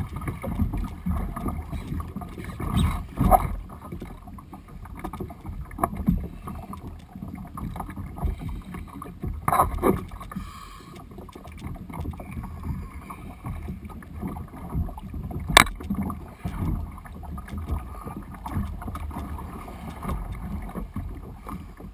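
Water splashing and slapping against the bow of a Malibu Extreme plastic sit-on-top kayak as it moves through light chop, with a few sharp knocks on the hull, the loudest about two-thirds of the way through.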